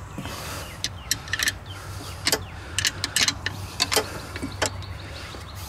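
Open-end wrench on the steel brake-line flare nuts of a master cylinder, clinking as it is fitted, turned and repositioned: a string of irregular sharp metal clicks.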